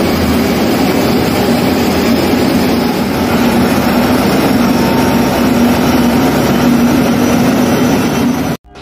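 Aircraft jet engine running under the wing while being fogged with preservation oil: a steady rushing noise with a constant low hum, breaking off abruptly shortly before the end.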